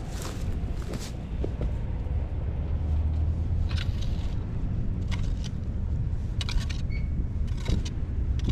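Hoe chopping and scraping through loose garden soil: a handful of short scrapes and knocks spaced about a second apart, over a steady low rumble.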